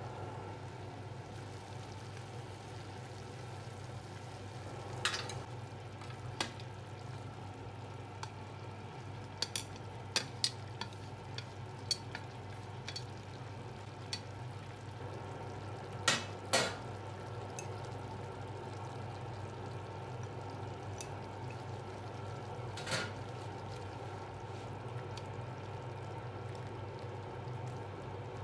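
Vegetable stew simmering in a frying pan, turned over with a spatula and chopsticks, with a dozen or so sharp clicks and knocks of the utensils and lid against the pan, the loudest pair about sixteen seconds in. A steady hum runs underneath.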